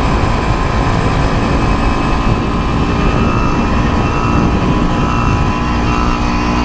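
Small 49cc motorized-bicycle engine running under way, a steady buzz over heavy low road and wind rumble, its pitch rising a little about three seconds in and holding.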